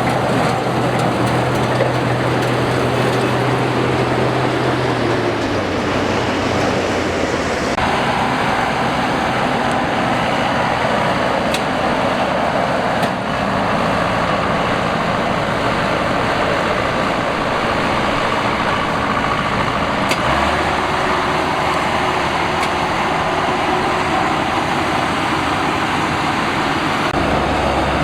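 Combine harvester running steadily at work, a dense mechanical din whose low engine note shifts pitch a few times.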